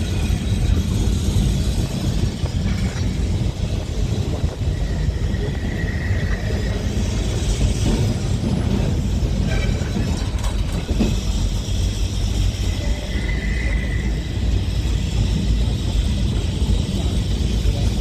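Open-top Boat tram running along the track, heard from on board: a steady, loud rumble of wheels and motors. Two brief high tones come through, about six and thirteen seconds in.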